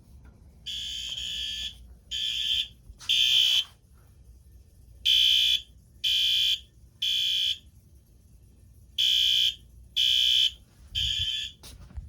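Fire alarm horns, taped over so they sound muffled and synced by a sync module, sounding the temporal-3 evacuation pattern: three short blasts, a pause, repeated three times. This is a Vista-128FBPN fire alarm system in alarm after its manual pull station was pulled.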